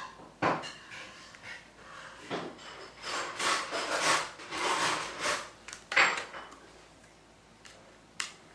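Handling sounds of a phone and its charging cable being held and plugged in: a few sharp clicks and knocks, the loudest about six seconds in, with rubbing and rustling between them.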